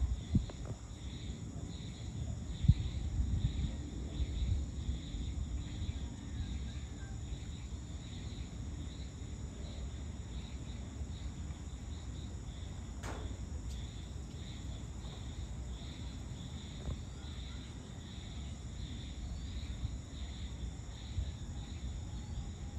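Evening insects chirring steadily, a high pulsing chirr repeating about twice a second over higher steady insect tones, above a low rumble of wind or distant traffic. A few low thumps near the start and a single sharp click about halfway through.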